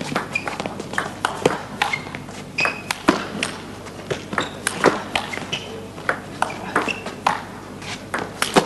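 Table tennis rally: the celluloid ball clicking off rackets and bouncing on the table in a long, irregular run of hits, with a few short squeaks between them. One player attacks while the other returns the ball with defensive chops.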